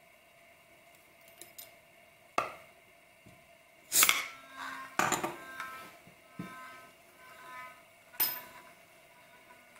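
Small metal objects clinking and knocking, five sharp strikes spread over several seconds, the second the loudest, several leaving a brief metallic ring.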